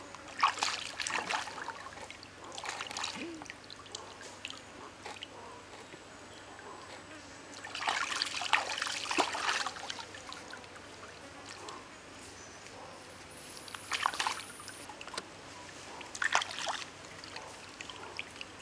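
Water splashing and trickling as hands swish a plucked chicken head and neck in a stream, in several short bursts over the steady rush of the flowing water.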